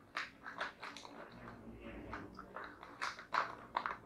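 Packaging crinkling and rustling as a sealed ritual-kit packet is handled and pulled open by hand, in a string of short, irregular crackles.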